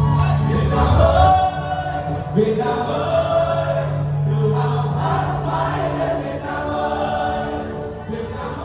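A lively Vietnamese song sung by many voices together, a man on microphone leading, over a steady musical accompaniment.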